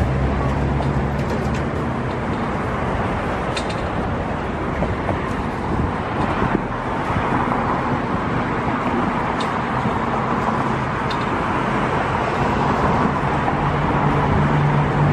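Steady road traffic noise from passing cars, with a low engine hum at the start and again near the end.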